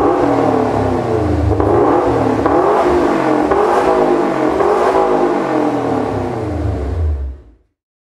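Subaru WRX STI's turbocharged flat-four engine revving through an HG Motorsport Ego-X valved aftermarket exhaust. The pitch rises and falls several times, then the sound fades out quickly near the end.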